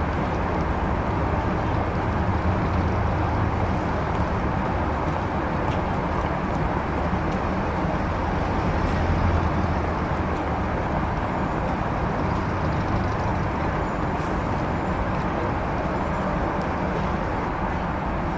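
1930s-style city street ambience: a steady low rumble of motor traffic under a continuous wash of street noise. It swells a little about halfway through, with a few faint ticks.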